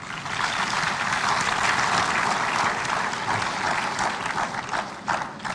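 Audience applauding, breaking out all at once and thinning to a few scattered claps near the end.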